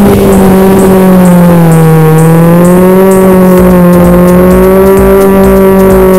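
Car engine held high in the revs while the car drifts, its pitch wavering slowly up and down as the throttle is worked.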